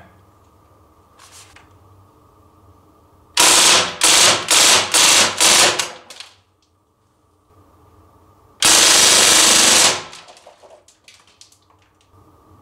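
CO2-powered replica Thompson M1A1 BB submachine gun firing: about six short bursts in quick succession, then one longer full-auto burst of about a second and a half, trailing off in a few faint rattles.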